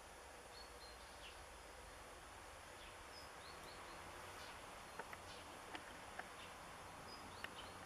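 Quiet outdoor ambience with a few faint, short bird chirps. In the second half come a handful of small, sharp clicks.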